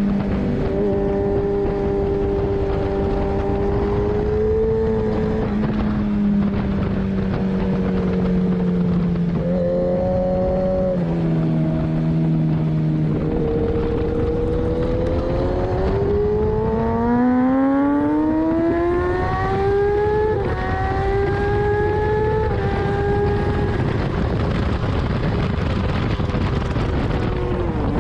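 Kawasaki ZX-10R's 998 cc inline-four engine heard from on board, with wind rushing over the microphone. The pitch holds and sags through a slow corner, then rises steadily under hard acceleration about halfway through, with short drops at two upshifts.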